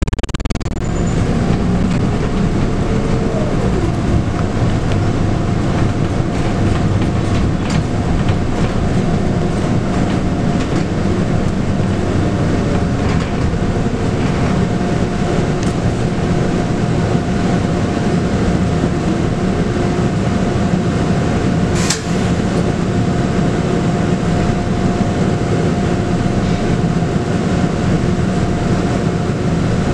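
Cabin noise aboard a Scania K280UB bus under way: its 9.3-litre five-cylinder Scania DC9 diesel and ZF Ecomat automatic gearbox running steadily, with a steady high whine over the engine and road rumble. A single sharp knock comes about 22 seconds in.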